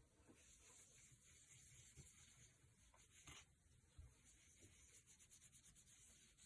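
Faint rubbing and scraping with a few small clicks, as of hands handling and fitting a smartphone's small plastic parts.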